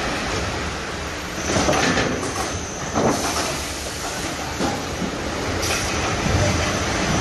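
Automatic cement brick cuber running: a steady machinery drone with sharp metal clanks and knocks every second or so, and two stretches of high hiss, about two seconds in and again near the end.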